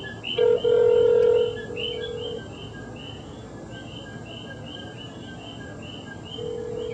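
Telephone ringback tone from a phone held on speaker, as an outgoing call rings unanswered: one two-second ring about half a second in, and the next ring starting near the end. Behind it, coquí frogs keep up a steady, regular chirping.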